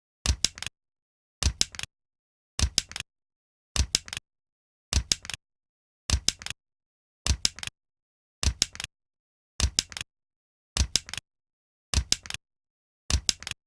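A stapler being pressed and released over and over, about once a second: twelve times in all. Each stroke is a quick cluster of sharp metallic clicks.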